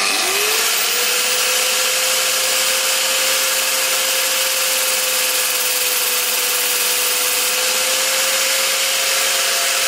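Angle grinder starting up and running at a steady pitch, with a steel bolt spun in a cordless drill held against its disc to grind the bolt shorter.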